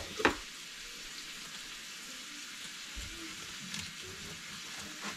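Steady sizzle of kohlrabi searing in a pan on the stove, with one sharp knock about a quarter-second in. Near the end come a few faint strokes of a knife cutting through the toasted sandwich.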